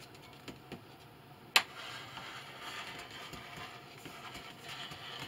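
Rotary cutter blade rolling through a doubled layer of fabric on a cutting mat, a faint steady hiss after a sharp click about a second and a half in.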